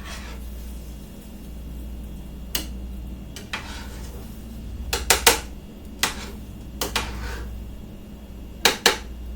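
Cooking utensil knocking and scraping in a frying pan as food is worked over, a few sharp clinks spaced a second or so apart, some in quick pairs.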